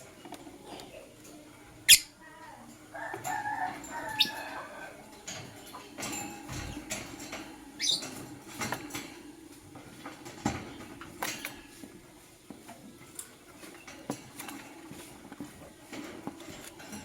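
Lovebirds in a cage giving short high chirps and a brief burst of chattering, with scattered sharp clicks and taps, the loudest a sharp snap about two seconds in, over a steady low hum.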